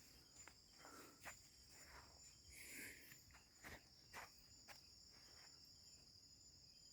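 Faint, steady night-time chirring of crickets or other insects, with a few soft clicks and rustles scattered through it.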